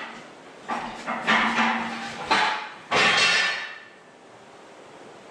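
Metal clanking and rattling from tools and parts on a diesel engine block, in several sudden bursts over the first four seconds; the last and loudest comes about three seconds in.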